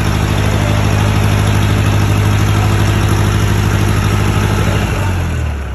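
40 kVA diesel generator set running at steady speed, then shut off about five seconds in, the engine note dropping in pitch and fading as it runs down.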